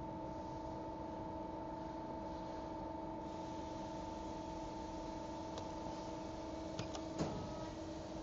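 Steady machine hum, a low tone with overtones held at one pitch, with a few faint light clicks in the last few seconds.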